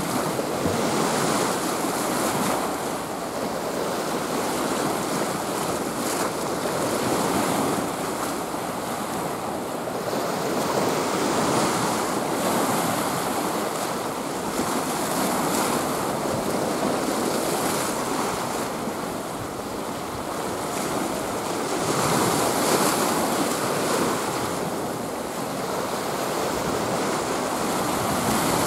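Sea waves washing and breaking, with wind buffeting the microphone; the rushing noise rises and falls every few seconds.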